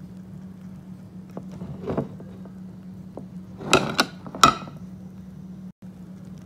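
Metal cookware clanking: a softer knock about two seconds in, then three sharp ringing clanks a little past halfway, over a steady low hum.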